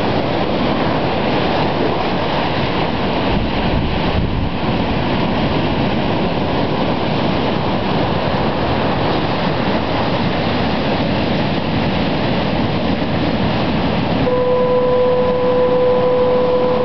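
Ocean surf making a loud, steady rush of noise. About fourteen seconds in, a single steady low tone like a horn starts and holds.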